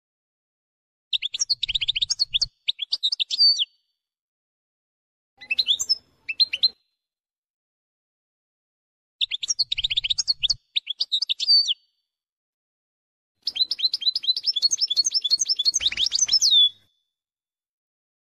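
European goldfinch song from an edited copia, the kind of compiled song recording played to teach caged goldfinches: four bursts of fast, high twittering phrases with trills, separated by dead silence. The last and longest phrase ends on a drawn-out trill.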